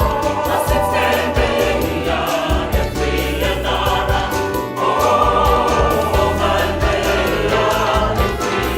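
Choir singing in a song with a steady beat, in a gospel style.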